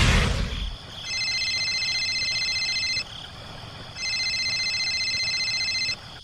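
A loud crash-like noise fades out at the start. Then an electronic buzzing tone sounds twice, each about two seconds long, a second apart.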